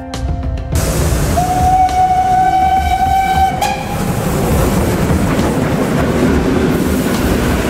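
German Class 52 2-10-0 steam locomotive 52 7596 passing under steam. About a second in it sounds one long whistle blast of some two seconds, ending on a brief higher note. The noise of its exhaust and running gear carries on loudly as it goes by.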